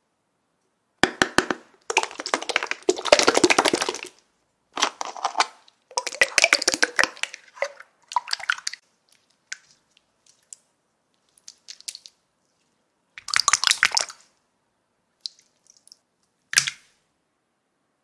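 Clear jelly slime squelching and popping as it is squeezed out of plastic jars and kneaded by hand, in a series of short bursts of wet clicking and crackling with quiet pauses between them.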